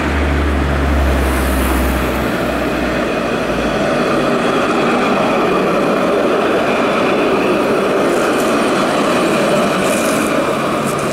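Alstom Citadis tram passing close by, giving a steady rolling noise of wheels on rails. A low rumble under it fades out about three and a half seconds in.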